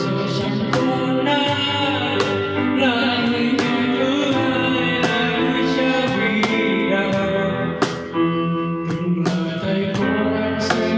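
A band playing a song: guitar over a steady drum beat, a stretch between sung lines.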